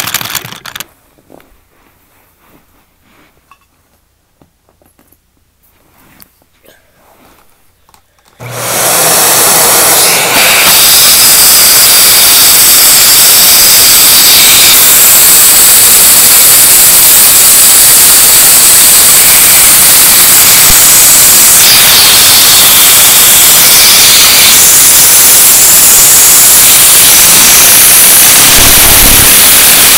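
A vacuum cleaner switches on about eight seconds in and runs loud and steady, its suction driving a one-cylinder Lego vacuum engine. Before it starts there are only faint handling clicks.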